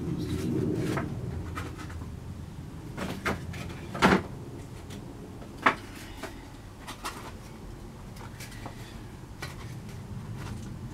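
Pallet-wood boards being handled and shifted about: irregular wooden knocks and scrapes. The loudest knock comes about four seconds in, and a sharp one follows near six seconds.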